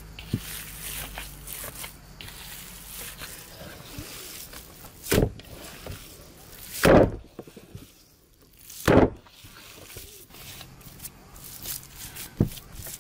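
Minced lamb being kneaded by hand in a metal bowl: soft wet squishing, with three loud slaps about five, seven and nine seconds in as the mass of meat is lifted and dropped back into the bowl.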